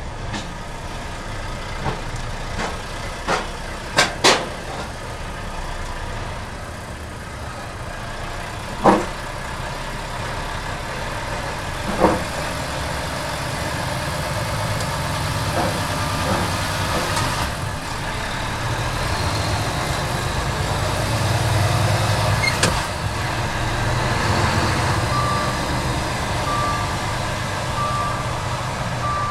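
Truck engine running at low speed, heard from inside the cab, with sharp clunks as the wheels roll over the joints and bridge plates between the rail wagons. Near the end a reversing alarm beeps steadily, a little over a second between beeps.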